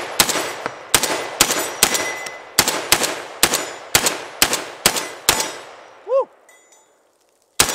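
Rock Island Armory VR80 gas-piston semi-automatic 12 gauge shotgun fired rapidly from its 19-round magazine, about two shots a second, each shot trailing off in echo. The string stops about five seconds in, and one more shot comes at the very end.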